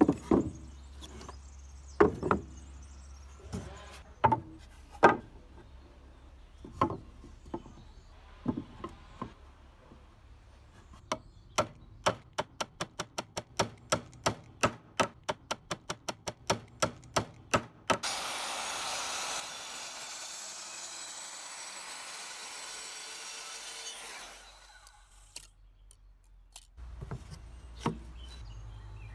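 Old wooden planks knocked and set down on a wooden bench, a few separate irregular knocks. Then a small hammer taps a pine board about three times a second for around seven seconds, followed by about six seconds of steady hissing noise.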